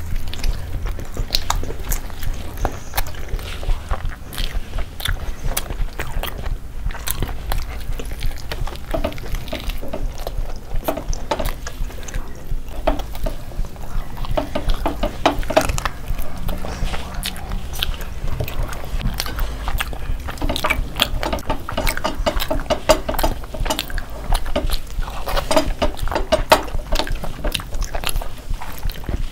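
Close-miked eating sounds: chewing, biting into fried chicken lollipops and wet lip smacks, as several people eat with their hands. A steady low hum runs underneath.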